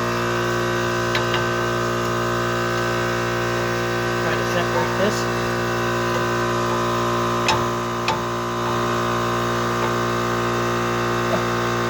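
Air compressor running with a steady hum, with a few light metal knocks and clicks from tools.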